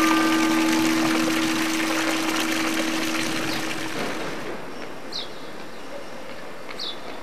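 A large cathedral clock-tower bell, struck once just before, hums on and fades out over about four seconds, over a steady splashing hiss of water. A few short high chirps come near the end.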